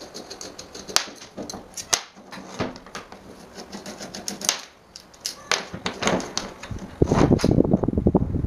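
Sharp metal clicks and knocks as a screwdriver works at the pressed-steel housing of an electric fan motor being taken apart. About seven seconds in, a louder, denser clattering noise starts.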